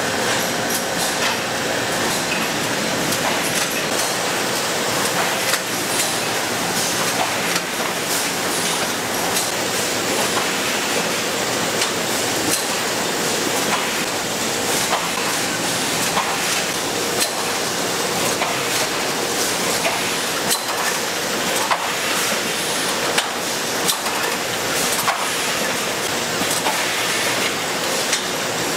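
Ice cream stick-bar production machinery running: a steady mechanical din with constant clattering and many sharp, irregular clicks from the chain conveyor and mould trays.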